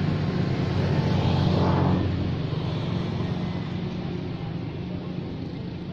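A motor engine running with a steady low hum, fading gradually from about two seconds in.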